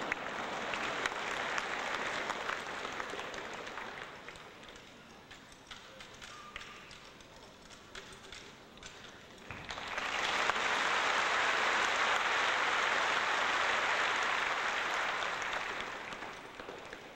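Audience applauding in two swells: one fades away in the first few seconds, and a louder one rises about ten seconds in and dies down near the end. Scattered sharp taps and clicks from the soldiers' rifle drill come through between and under the clapping.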